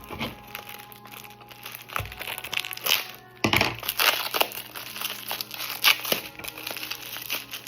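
Plastic bubble wrap crinkling and rustling in irregular bursts as it is handled and pulled off crystals, with a brief lull about halfway through.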